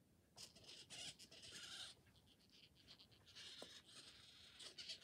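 Faint whirring of a Metacat 2.0 robotic cat's head servos as it turns and tilts its head, in two short spells.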